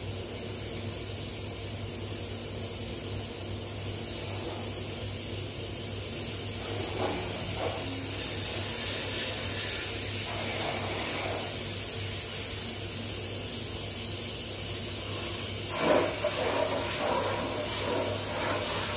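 A steady hiss over a low hum. About 16 seconds in, a hose's pistol-grip spray nozzle bursts on and jets water against a stainless steel meat band saw.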